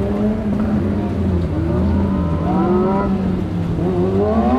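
Motorcycle engine running under way, its pitch rising and falling with the throttle and climbing twice as it is revved.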